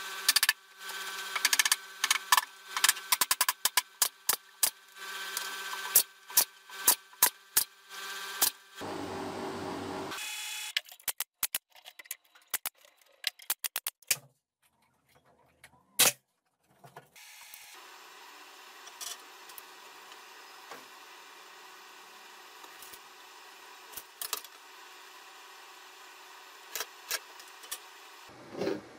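A rapid string of sharp shots from a pneumatic brad nailer driving nails into pine pallet boards, in the middle of the stretch. Before it come scattered sharp nailing knocks over a steady machine hum that stops about ten seconds in. Near the end there is only a faint steady hum with a few light ticks.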